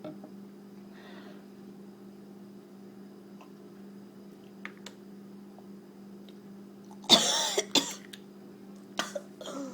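A woman coughing and clearing her throat after swallowing a nasty-tasting cough syrup. One loud cough comes about seven seconds in with a short one right after, and two smaller ones follow near the end, over a steady low hum.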